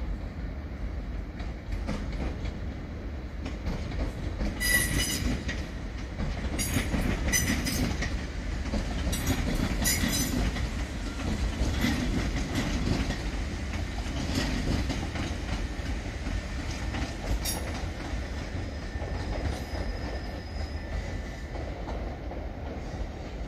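Southern Class 377 Electrostar electric train moving slowly through the station with a steady low rumble. A run of sharp clicks starts about five seconds in and lasts to about ten seconds, with one more a little later. A faint high wheel squeal comes near the end.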